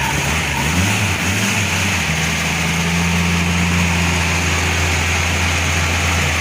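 Ford F-75 pickup's Willys six-cylinder engine running, its speed wavering for the first couple of seconds and then settling into a steady idle.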